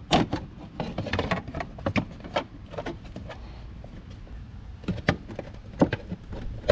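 Plastic strut-mount cover knocking, scraping and clicking against the surrounding plastic trim as it is angled and twisted down into place: a busy run of sharp knocks at first, a lull, then a few single clicks.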